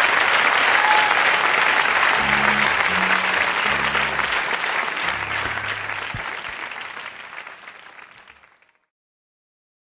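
Recorded audience applause and cheering at the end of a live song recording, with a few low sustained instrument notes under it and a short whistle about a second in. It fades out steadily to silence about eight and a half seconds in.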